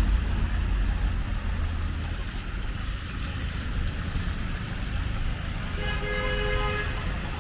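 Low rumble of street traffic, strongest at first and easing off, with a brief steady pitched tone of several notes about six seconds in.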